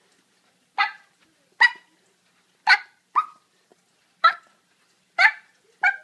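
A series of seven short, sharp animal calls, each clipped and pitched, coming at uneven intervals of about half a second to a second.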